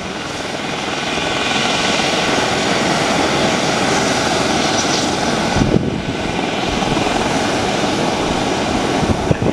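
Pilatus PC-12's single Pratt & Whitney PT6A turboprop engine running during start-up, its propeller turning: a steady rushing turbine noise that builds over the first couple of seconds and dips briefly a little past halfway.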